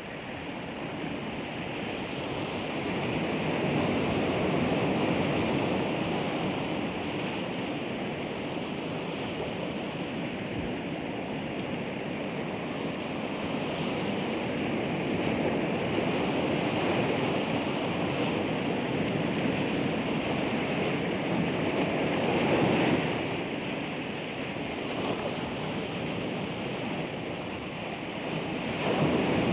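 Rushing noise of sea waves, steady with slow swells in loudness every several seconds.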